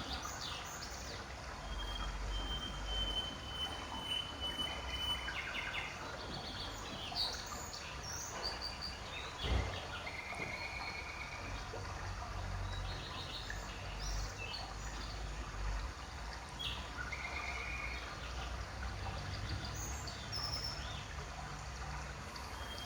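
Background birdsong: many short chirps and whistles, with a low rumble underneath. One soft knock about nine and a half seconds in.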